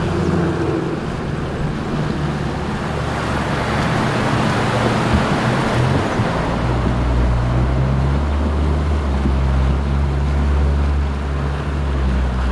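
Fast-flowing river water rushing over a shallow crossing, with the low, steady running of an Isuzu 4WD's engine as it wades through the current; the engine grows louder about six seconds in.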